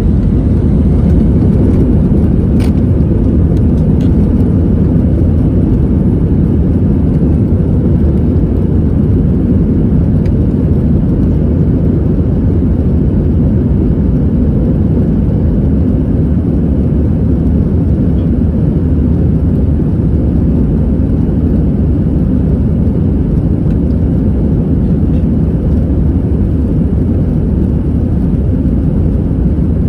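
Airbus A320's jet engines and airflow heard from inside the passenger cabin, a loud, steady low rumble.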